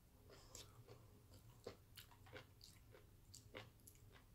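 A person chewing a mouthful of seaweed salad: faint, irregular clicking mouth sounds.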